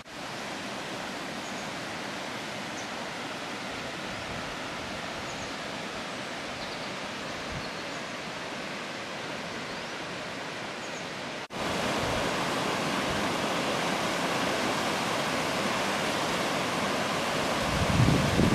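Steady rush of the Frido river's water over rocks. It jumps louder at a cut a little past halfway, and near the end a low rumble of wind on the microphone joins it.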